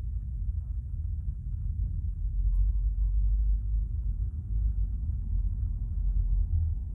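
Low, steady rumble inside a stationary car's cabin, a little louder from about two and a half seconds in.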